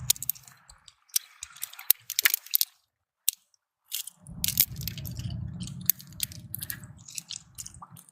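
Scattered sharp clicks and crunches of shells and stones being handled or stepped on, with a silent pause midway and then a low rumble under the clicks for a couple of seconds.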